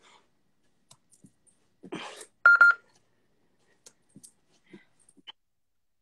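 SmartWOD interval-timer app giving a short high electronic beep in a few quick pulses about two and a half seconds in, just after a brief rush of noise. It falls where the timer's halfway signal in a 20-second work interval would come. Faint scattered taps around it.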